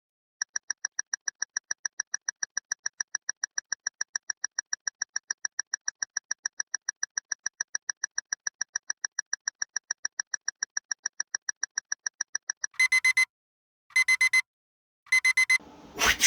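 Electronic beeping: a rapid, even run of short beeps, about six a second, for about twelve seconds, then three short bursts of louder beeps a second or so apart. A loud hit comes at the very end.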